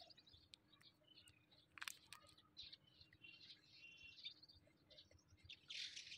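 Near silence with faint bird chirps in the background and a few soft clicks and crinkles.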